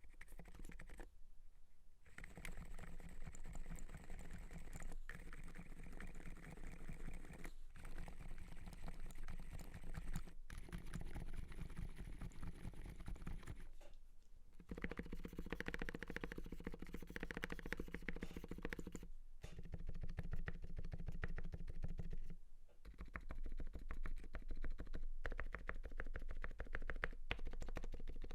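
Fast, continuous typing on an Everglide SK87 mechanical keyboard with lubed Alpaca silent switches, a carbon plate and MDA-profile PBT keycaps: muffled, dampened keystrokes in quick succession, broken by a few short pauses.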